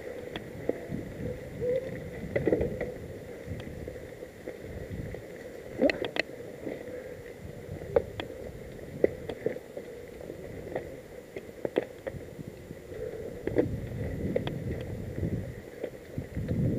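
Mountain bike riding along a dirt singletrack covered in dry fallen leaves: a steady rumble of tyre and trail noise, with scattered sharp clicks and knocks.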